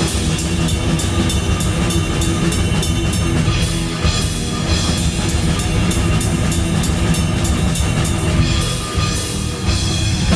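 Instrumental rock music with no vocals: a drum kit driving steadily, with bright cymbal crashes every few seconds over a heavy low end.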